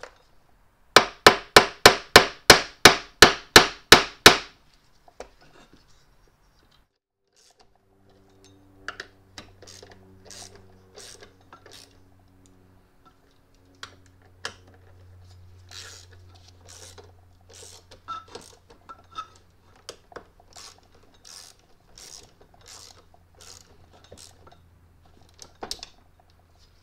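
About a dozen loud, sharp taps in quick succession, roughly three a second, as a Toyota 2F smog pump housing is tapped down onto its locating dowels. From about eight seconds in, a ratchet clicks off and on as the housing bolts are run down, over a faint low hum.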